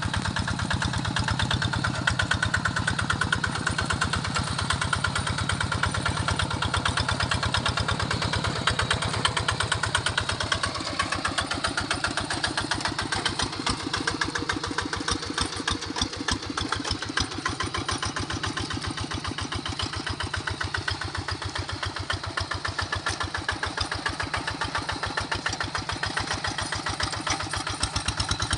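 Large paddy-field tractor's diesel engine running steadily under ploughing load, with an even chugging pulse, easing somewhat in the middle before picking up again near the end.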